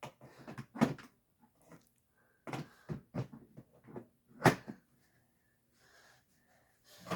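Vacuum cleaner attachments being handled: a scattered series of knocks and clicks, the loudest about four and a half seconds in.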